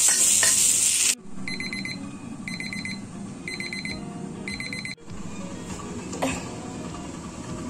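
Greens sizzling in a wok for about a second, then a digital kitchen timer's alarm: four short bursts of rapid high beeps, about a second apart, signalling that the steaming time is up. After the beeps, a low steady rumble from the gas burner under the covered steaming wok.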